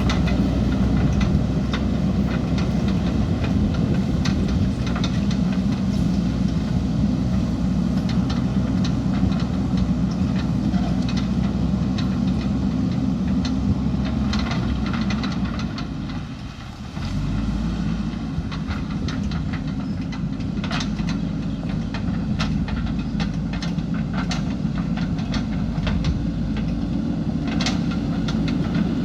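JCB backhoe loader's diesel engine running steadily under work, with scattered clanks and knocks throughout. About two-thirds of the way through the sound drops away briefly, then cuts sharply back in.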